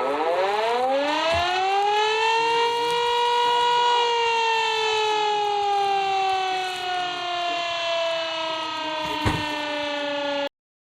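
Civil-defense warning siren winding up from a low pitch to a high one over about two seconds, holding, then slowly sagging in pitch before cutting off abruptly near the end.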